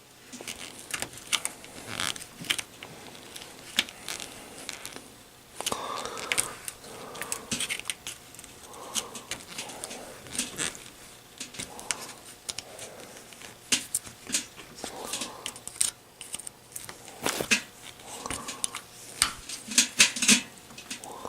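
Irregular small clicks, taps and scrapes of hand tools and metal parts as the hinge covers are worked off an old General Electric refrigerator.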